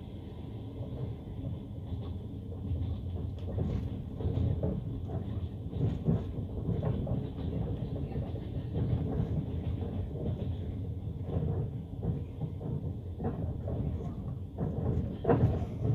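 Passenger train running, heard from inside the carriage: a steady low rumble with irregular clatter and knocks.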